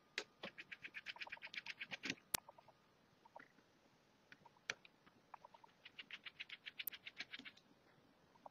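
Faint runs of quick small clicks, about nine a second, as a tiny Phillips 00 precision screwdriver works the very tight screws of a Nokia N900 phone. There is a sharp single click between the first and second run.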